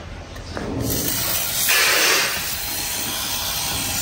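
Aerosol spray can hissing in one long spray of about four seconds. It starts about a second in and is loudest around two seconds in.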